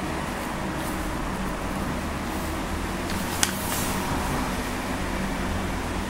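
A glossy magazine page being turned: a short paper rustle with one crisp snap about three and a half seconds in, over a steady low background hum.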